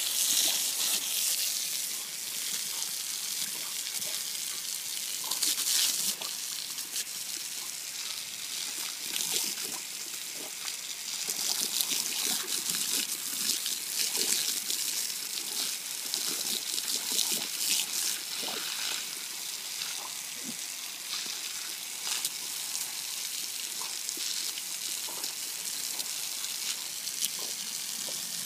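Water jetting from a garden hose and splashing on concrete: a steady hiss broken by many small irregular splashes as a dog bites and laps at the stream.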